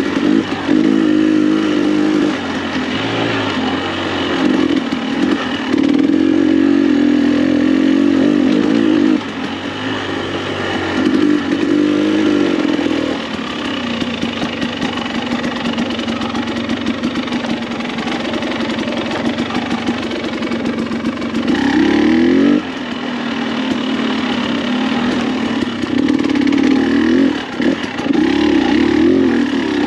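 2021 KTM 300 XC-W TPI two-stroke dirt bike engine, exhaling through an FMF spark-arrestor muffler, revving up and down in repeated bursts of throttle on tight singletrack. It has a longer stretch of lower, steadier running through the middle.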